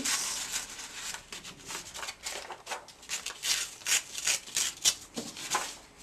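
Handmade paper being torn by hand: a run of short, irregular rips and crackles.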